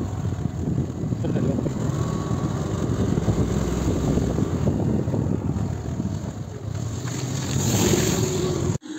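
Motorbike engine running and wind rushing over the microphone while riding along a road, a steady low rumble that cuts off suddenly near the end.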